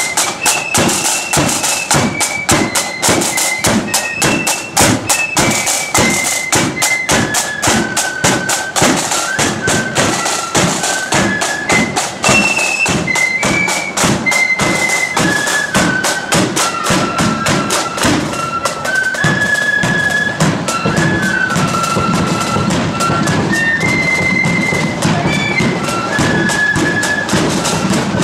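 Marching flute band playing: flutes carry a melody in unison, note by note, over a steady, rapid drum beat.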